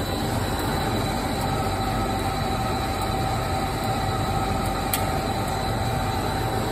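Slurpee frozen-drink machine running: a steady mechanical hum with a constant whine. A light click about five seconds in.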